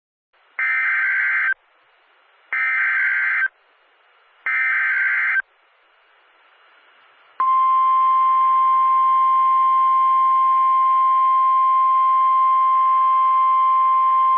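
Emergency Alert System header: three equal one-second bursts of buzzy digital data tones (the SAME header code), about a second apart. About seven seconds in, a loud, steady single-pitched alarm tone starts: the 1050 Hz NOAA Weather Radio warning alarm that comes before a warning message is read.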